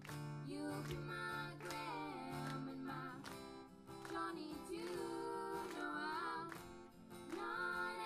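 Music: an acoustic guitar strummed under a sung melody.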